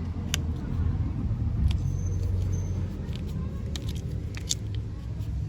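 A few light metallic clicks and taps as a greased brake pad is handled and fitted into the caliper, over a steady low rumble.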